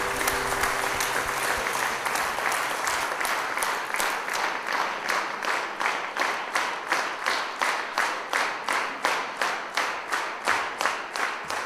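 Audience applause as the last chord of the song fades, settling after a few seconds into steady rhythmic clapping in unison, about three claps a second.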